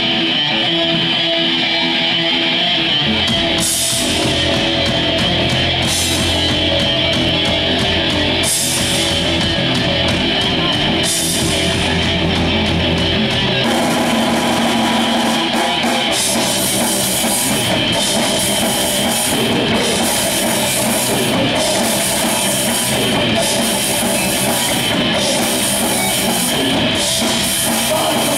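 Live rock band playing an instrumental passage on electric guitar, bass guitar and drum kit through a small stage PA. The guitar starts alone; a few seconds in the bass and drums come in with cymbal crashes, and from about halfway the drums play steadily with the full band.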